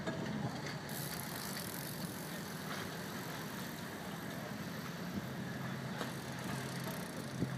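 A boat's engine running steadily with an even hum, over a hiss of water and wind.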